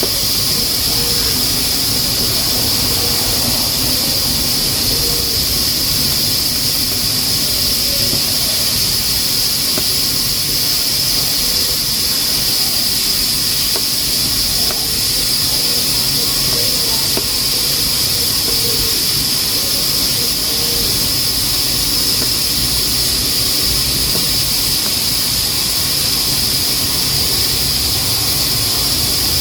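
Pressure cooker hissing and whistling steadily as steam escapes from its valve while beans cook on a wood-fired stove. The high, even hiss does not break or change.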